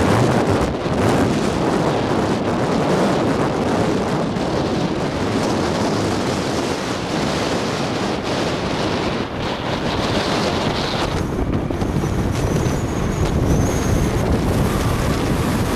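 Strong wind buffeting the microphone over the jet engine noise of a Boeing 777-200ER landing and rolling out on the runway. A faint high whine comes in about twelve seconds in.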